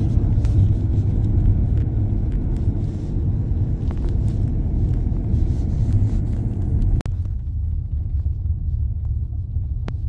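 Steady low rumble of a car, heard from inside it. A sharp click comes about seven seconds in, after which the upper hiss drops off.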